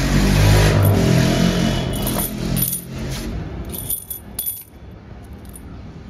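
A bunch of steel keys on a ring, with a brass lock cylinder, jangling and clinking as they are handled and set down on a stone surface, with several sharp metallic clinks about four seconds in. A low rumble fills the first couple of seconds and then fades.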